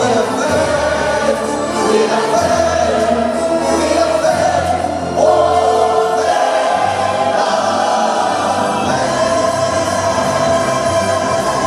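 Show soundtrack music with a choir singing long held notes.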